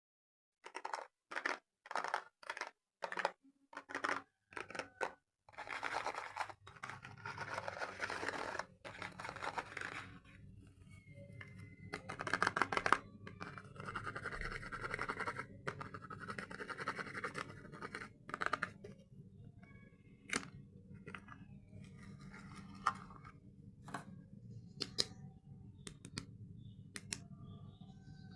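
Soap packaging being handled and unwrapped by hand. It starts with a quick run of about ten short scratching strokes, then longer stretches of rustling and tearing, then scattered light clicks and taps.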